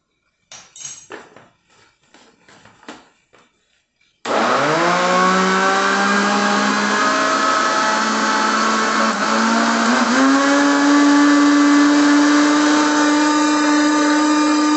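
A few knocks and clatters of handling at the jar, then about four seconds in a Britânia household blender motor starts and runs steadily, its pitch sagging briefly twice before settling. The weak blender is working against a jar packed full of guava pieces, all put in at once, which the owner expects to snag.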